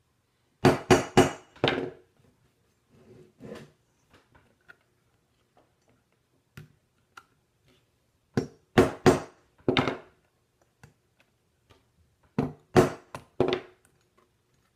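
Hammer striking a steel rivet setter to set rivets through leather on a steel anvil plate: three runs of about four sharp, ringing blows each, with two lighter taps around three seconds in. The rivets were sitting a bit proud and loose, and the blows drive them down tight.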